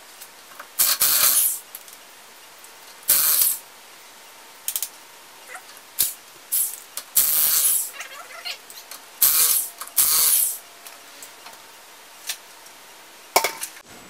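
Corded electric impact wrench run in five short bursts, spinning off a car wheel's lug nuts, with a few metallic clicks of nuts and tools being handled in between.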